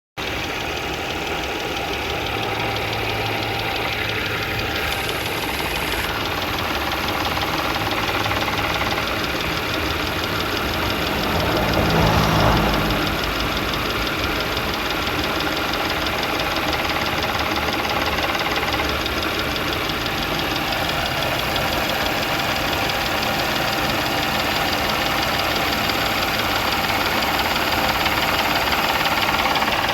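Audi B8 S4's supercharged 3.0 V6 running with a rapid, even knocking or ticking over the engine sound, which grows briefly louder about twelve seconds in. The owner can't tell whether it is timing chain trouble or rod knock.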